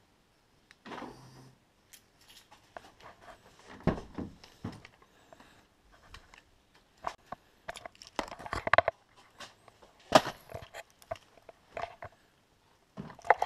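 Scattered clicks, knocks and rustling from a car's rear door being opened and things being handled on the back seat. There is a heavier thump about four seconds in and a sharp knock about ten seconds in.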